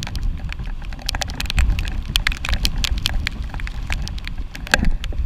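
Water droplets striking the camera housing in quick irregular ticks aboard a running open skiff, over a steady low rumble of the boat's run.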